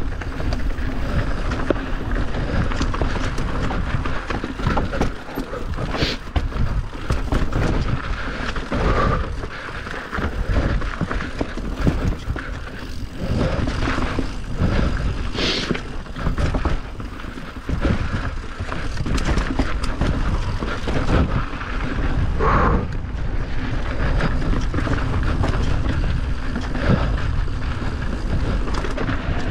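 Mountain bike riding down a rough enduro trail, heard from on the bike: a steady rush of wind and tyre noise with constant short rattles and knocks from the bike over the bumps.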